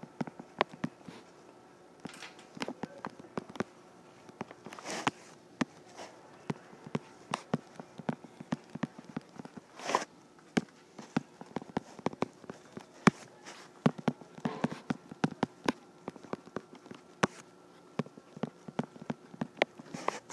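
Irregular run of sharp clicks and taps from a stylus writing on a tablet screen.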